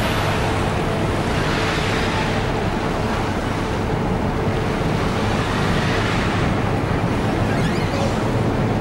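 Steady wind rushing over the microphone, with a low, even hum of ship machinery underneath.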